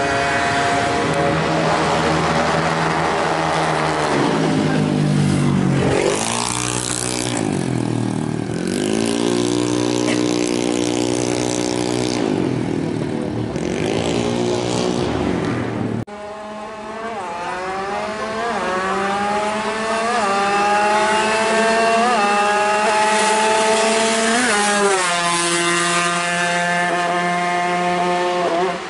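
Kawasaki Ninja two-stroke motorcycle engine revving up and down in repeated blips, then, after a cut, pulling hard with the pitch climbing and dropping at each of several gear changes. The engine is said to be coughing, i.e. misfiring.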